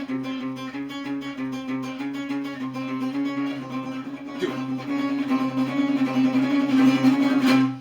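Suspense music: fast repeated plucked notes over a held low drone, growing louder and then cutting off suddenly at the end.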